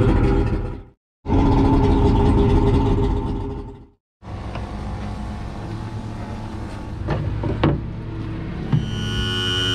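A Mercury 150 hp six-cylinder two-stroke outboard running on flush muffs, being warmed toward operating temperature, loud and steady in three short stretches broken by abrupt cuts. After that a quieter steady running sound follows, with a few sharp clicks and a steady hum coming in near the end.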